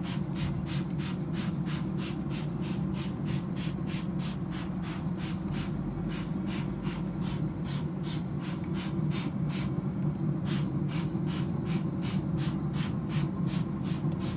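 Hand-held trigger spray bottle spritzing ribs in a smoker, squeezed rapidly and evenly at about three sprays a second, over a steady low hum.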